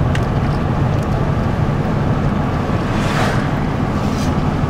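In-cabin road and engine noise of a car driving at about 30 mph: a steady low rumble under a wind hiss. The hiss swells briefly about three seconds in.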